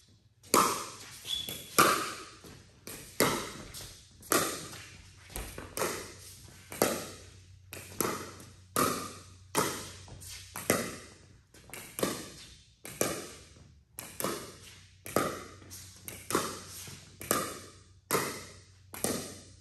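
Paddletek Tempest pickleball paddles (Wave Pro and Reign Pro) popping against a plastic pickleball in a continuous rally, about one sharp hit a second, each echoing in a large indoor hall.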